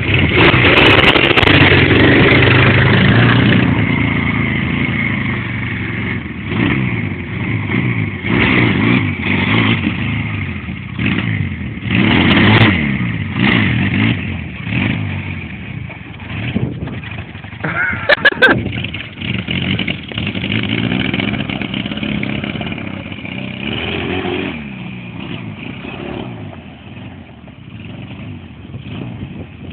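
Barossa 250cc quad bike engine revving hard as it pulls away close by, then rising and falling in repeated throttle surges while the rider wheelies. It grows fainter as the quad rides off.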